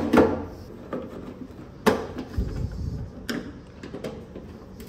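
A few sharp clicks and knocks as a plastic side marker lamp is pressed into a truck's front fender and its screw is turned with a screwdriver, the sharpest click about two seconds in.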